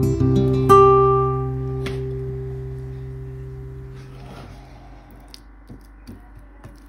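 Background guitar music: a last plucked note about a second in rings on and fades away.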